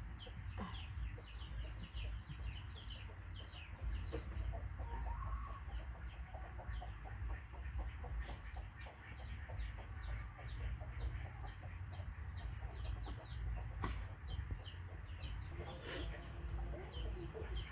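Birds chirping: many short, high, falling chirps, several a second, over a steady low rumble.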